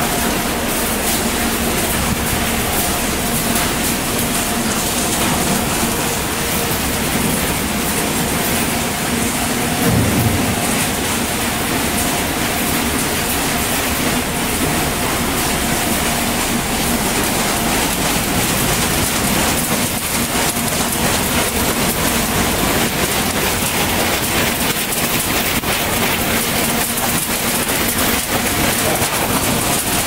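Garbage sorting line machinery running: conveyor belts and a rotating drum screen handling waste, a loud steady noise with a faint hum underneath and a brief louder knock about ten seconds in.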